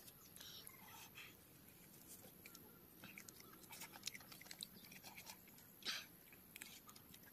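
Faint open-mouthed chewing of roasted meat: scattered soft smacking clicks, with a short breathy puff about six seconds in.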